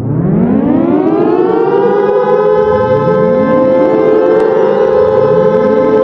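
Civil defense siren starting up: its pitch rises from low to a steady high tone over about a second and a half, then holds. Fainter second and third rises sound underneath it, about two and a half and four and a half seconds in.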